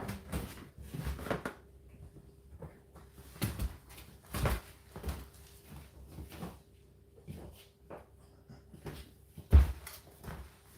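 Indesit IDC8T3 condenser tumble dryer running, its drum turning over a steady motor hum while the load tumbles and drops against the drum in irregular thuds and knocks, the loudest thud near the end.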